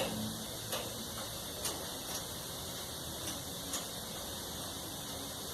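A few light, scattered metallic clicks and taps of a screwdriver and loose screws against the sheet-metal panel of a clothes dryer being taken apart, over a steady low hiss.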